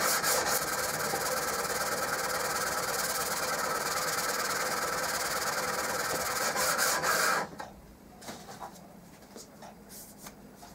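Back of a steel Stanley chisel rubbed back and forth on the coarse 360-grit side of a wet diamond sharpening plate, a steady scraping rasp as the back is flattened at the tip. The strokes are distinct at first, then blend into a continuous rasp that stops abruptly about seven seconds in. A few faint rustles follow as the chisel is wiped with a paper towel.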